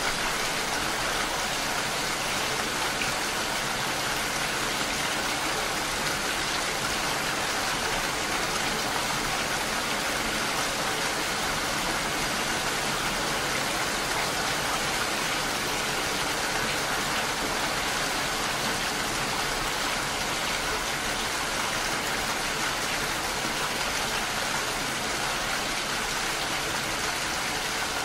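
Steady rain, an even hiss of many drops that keeps on without pauses or changes.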